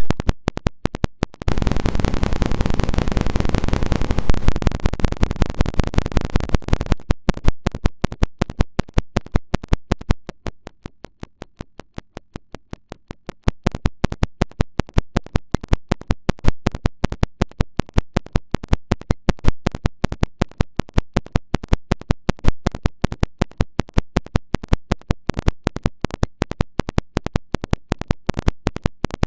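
An emergency alert alarm chopped into a rapid stutter of very short repeated clips, many a second. There is a loud stretch of harsh noise in the first several seconds and a quieter patch near the middle.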